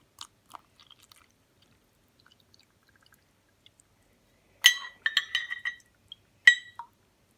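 Small handling noises, then sharp ringing clinks of a utensil against a hard container: one loud clink, a quick run of several more, and a last loud one. These come as the slime ingredients and water are readied for mixing.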